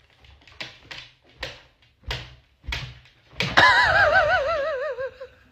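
About six light knocks, roughly half a second apart, then a loud wavering whine that wobbles steadily in pitch and falls slowly for about two seconds.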